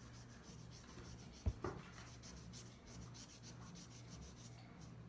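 Gold shiny marker scribbling on paper in quick repeated strokes, with one sharp knock about one and a half seconds in.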